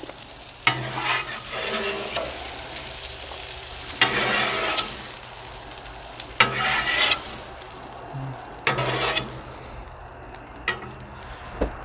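Metal spatula scraping across the steel top of a hot Blackstone flat-top griddle, pushing potato salad into a bowl in several separate strokes, with the food sizzling on the hot surface.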